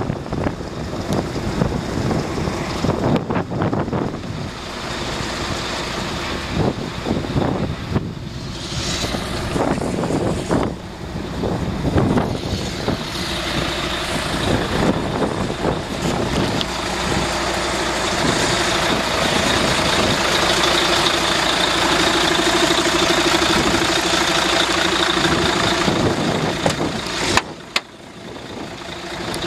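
Mercedes-Benz 4031 dump truck's diesel engine idling steadily, with rumbling handling and wind noise on the microphone in the first half. There is a brief click and a dip in level near the end.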